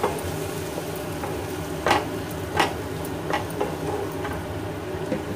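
Wooden spatula stirring and scraping mashed eggplant, onion and tomato in a nonstick frying pan, over a steady low sizzle of frying. A few sharp scrapes of the spatula against the pan come in the middle of the stretch.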